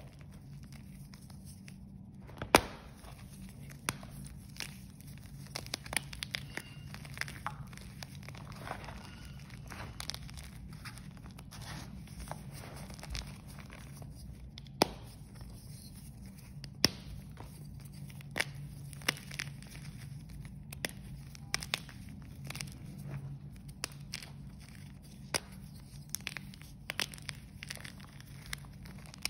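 Blocks of gym chalk dusted with holi powder being squeezed and crumbled by hand: continuous crunching and crackling with a few sharp, loud snaps as pieces break, over a low steady hum.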